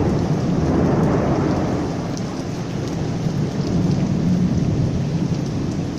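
Thunder rolling over heavy rain pouring onto pavement and trees. The low rumble eases after a couple of seconds and swells again about four seconds in.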